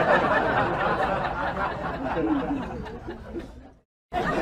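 Several people chattering and laughing over one another, fading and then cutting off abruptly near the end.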